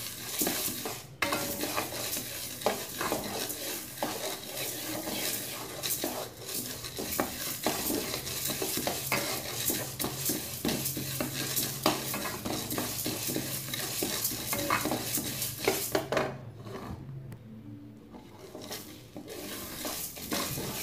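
Wooden spatula stirring dry toor, chana and urad dal around a dry kadai, the lentils rattling and scraping against the pan as they dry-roast. The stirring eases off into a quieter lull of a few seconds near the end, then resumes.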